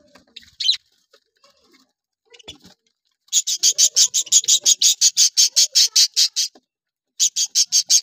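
Budgerigars calling. A single short chirp comes under a second in. Then a rapid, evenly repeated series of sharp high chirps, about seven a second, runs for about three seconds, breaks off, and starts again near the end.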